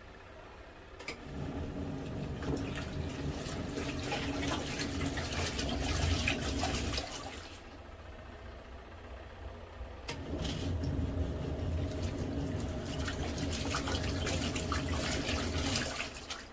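ROVSUN twin-tub washer's wash tub agitating: a motor hum with water churning and sloshing, in two runs of about six seconds with a short pause between, as the wash motor stops and starts again.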